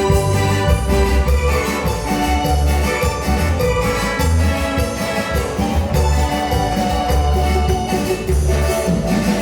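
Latin dance band playing an instrumental passage: sustained melody notes over a steady, pulsing bass line.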